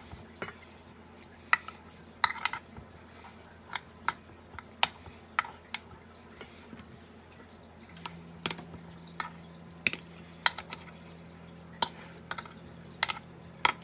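Metal spoon clinking and scraping against a nonstick muffin tin and a steel mixing bowl as ground meat is scooped and pressed into the cups, in irregular light clicks.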